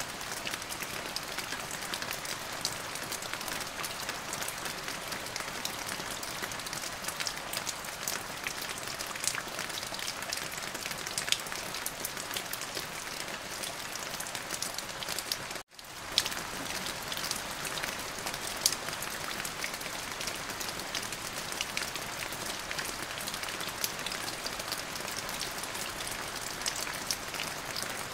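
Steady rain falling on a surface, a dense even patter of many small drops. The sound cuts out for an instant a little past halfway, then resumes unchanged.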